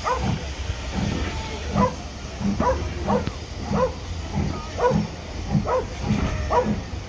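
Steam locomotive exhaust beats heard through an open carriage window: a slow, regular chuff, about one beat a second.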